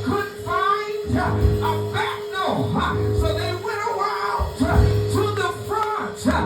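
Church music: a held organ-like chord and repeated bass notes, with voices singing and calling out over it.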